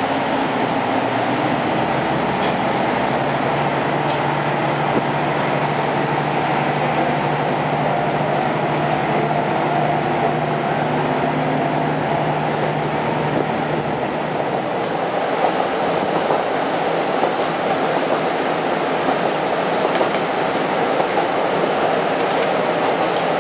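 Diesel train heard from inside the car as it runs along the line. A steady low engine hum fills the first half, then gives way to rolling wheel-and-rail noise with a few light clicks.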